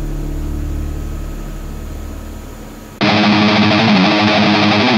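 Background music: a low held chord fading out, then about three seconds in, loud distorted electric-guitar rock music cuts in.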